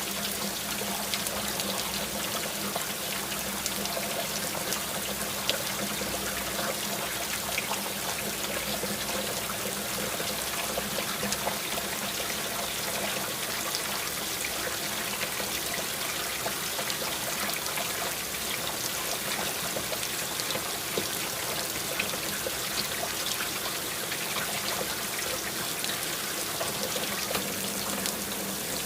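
Water pouring and trickling steadily, with a steady low hum underneath.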